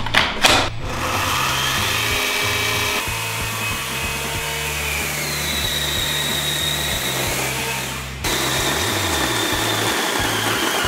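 Battery pack clicking into an Einhell GE-LC 18 Li cordless chainsaw, then the saw's electric motor running with a steady high whine as the chain cuts through a branch. The sound changes abruptly twice.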